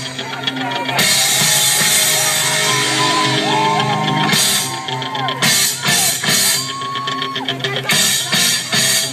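Loud rock music with drums and guitar played over a PA loudspeaker.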